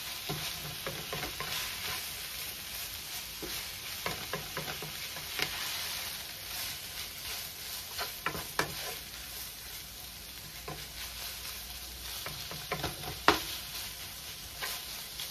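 Onions and codfish sizzling steadily in a nonstick frying pan while a wooden spatula stirs them, with scattered clicks and scrapes of the spatula against the pan. One sharper knock comes about thirteen seconds in.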